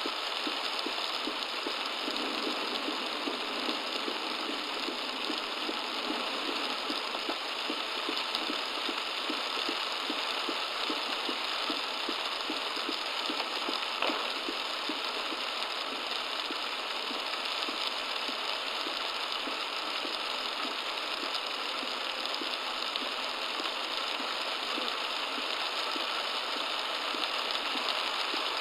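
Heavy downpour drumming on a car, heard as a steady rushing noise through a dashcam's microphone along with the car's running engine and tyres on the wet road. A single faint click about halfway through.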